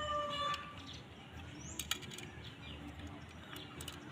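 The tail of a rooster's crow, ending about half a second in, followed by low background noise with a few faint sharp clicks.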